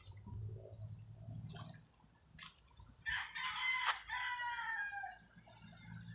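A rooster crowing once, a single call about two seconds long, starting about halfway through and falling in pitch at the end.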